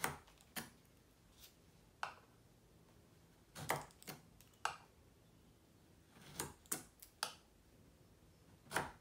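Chisel paring a chamfer along a wooden wing spar by hand, guided by a steel jig: about a dozen short, sharp clicks at uneven intervals as strokes shear off chips and the steel touches steel.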